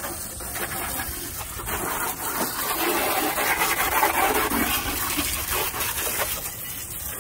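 Garden hose spray nozzle spraying a light stream of water onto a riding mower's Kohler engine shroud and plastic hood panels: a steady hiss and spatter, louder in the middle.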